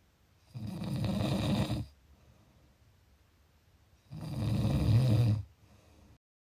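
A person snoring: two long, rasping snores about three and a half seconds apart. The sound then cuts out completely just before the end.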